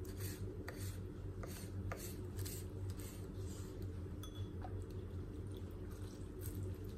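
Kitchen knife slicing mushrooms on a wooden cutting board: a series of short, irregular cutting strokes over a steady low hum.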